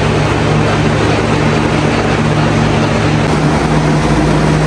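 A loud, steady rushing noise with a low hum underneath, unchanging throughout, like a running machine or appliance.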